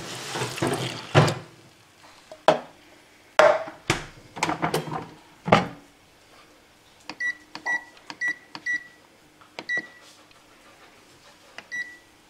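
Water pouring into a bread maker's pan, then several sharp knocks and clunks, then about six short high beeps from the bread maker's control panel as its program is set and Start is pressed.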